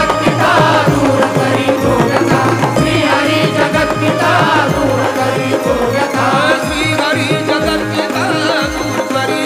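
Instrumental break in a Marathi devotional song: hand drums keep a steady beat under a winding melody instrument, with no singing.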